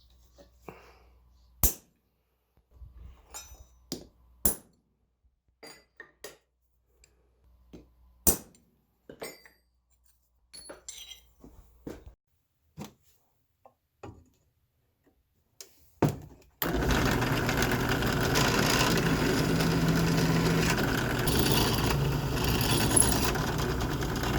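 Scattered metallic clinks and taps of steel and tools being handled. About two-thirds of the way through, a machine starts abruptly and runs with a steady, loud rushing noise.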